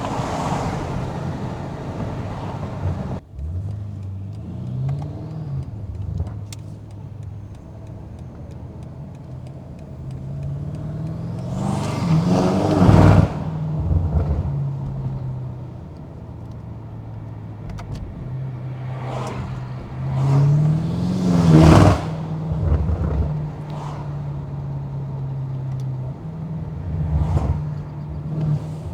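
Twin-turbo V8 of a stage 2–tuned BMW M8 Competition under way. A hard burst of throttle cuts off sharply about three seconds in. The car then cruises at a steady drone, with two strong accelerations where the engine note climbs and then drops, near the middle and a little past two-thirds of the way through, plus shorter lighter ones.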